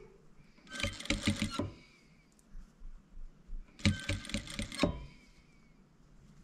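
Industrial lockstitch sewing machine stitching in two short runs of about a second each, one about a second in and one near four seconds, stopping in between.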